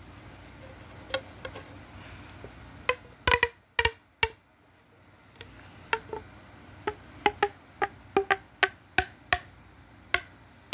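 Plastic pop tube fidget toys being stretched and squeezed, giving a string of about twenty sharp, hollow pops at an uneven pace, the loudest ones a few seconds in.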